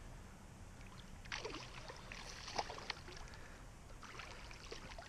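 Faint water splashing in short bursts as a hooked crappie thrashes at the pond's surface while being reeled in.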